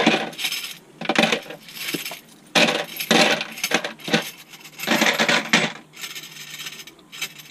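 Small nuts, bolts and washers rattling and clinking as they are shaken out of a hollow motorcycle handlebar tube into a small pot, in about five bursts of clatter.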